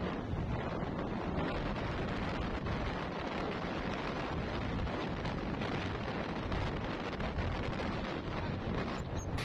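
Steady wind rumble on the microphone with road noise from a vehicle driving along a paved road.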